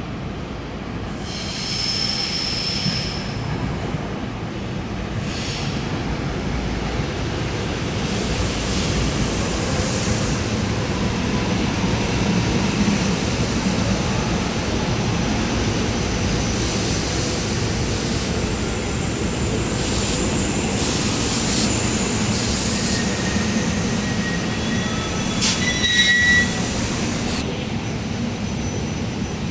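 SEPTA Regional Rail train pulling into an underground station and running along the platform: a steady rumble of wheels on rail, echoing in the station, with several high-pitched squeals, the loudest near the end as it slows.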